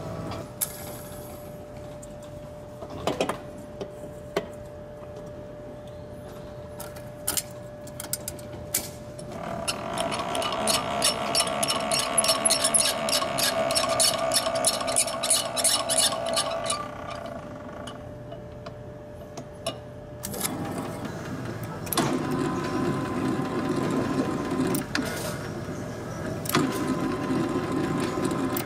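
Dalton universal mixer running, its motor and gearing giving a steady whine with scattered clicks. About ten seconds in it turns louder with a fast rhythmic clatter for some seven seconds, and in the last third it settles to a lower, rougher churning.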